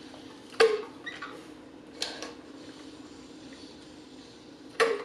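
A person gulping water from a large insulated bottle, with three loud swallows about half a second in, around two seconds in and near the end, over a faint steady hum.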